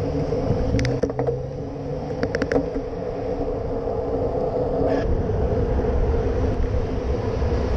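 Steady road and wind noise from a camera on a moving bicycle, with traffic rumble and a few short rattling clicks in the first few seconds. The low rumble grows heavier about five seconds in.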